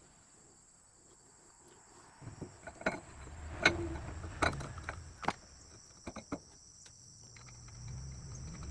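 A handful of light clicks and knocks from hands working a bolt and parts on a mower's front caster wheel, over the steady high chirring of crickets.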